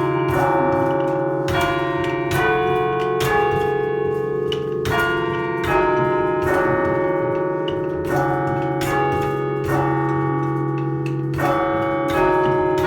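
A chime of thirteen church bells cast by John Taylor & Co in 1939, struck one at a time in a slow tune of changing notes, a little more than one note a second, each bell ringing on under the next.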